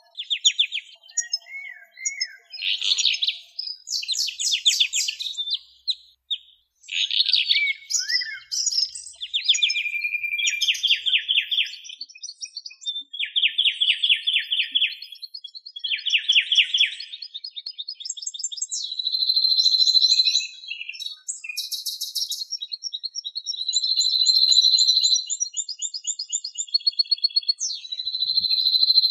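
A songbird singing a long, varied song in phrase after phrase of fast trills, rapid repeated notes and a few drawn-out buzzy notes.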